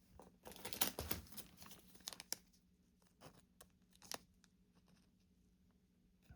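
Thin plastic card sleeve crinkling and rustling as a trading card is worked into it. A busy patch of rustling and clicks in the first two seconds or so, then only scattered soft taps and clicks.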